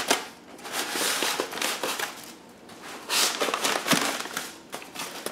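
Polystyrene foam packing block rubbing and scraping against foam and the plastic bag as it is pushed into a tight fit in the carton, in several irregular bursts, with a short knock about four seconds in.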